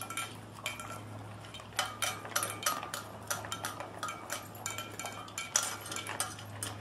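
Dog eating dry kibble from a bowl: quick, irregular clinks and crunches as it gulps the food.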